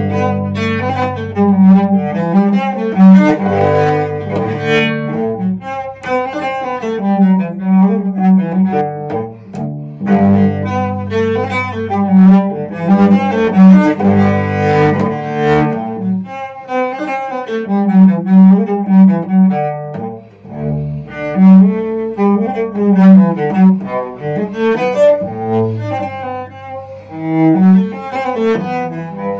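Cello played with a bow: a slow melody in long phrases, with a short break about twenty seconds in.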